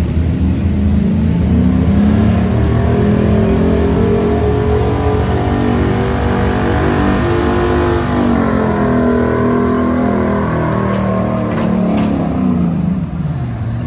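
Gasoline pickup truck engine at full throttle pulling a weight-transfer sled: the revs climb over the first few seconds, hold high under heavy load, then fall away near the end.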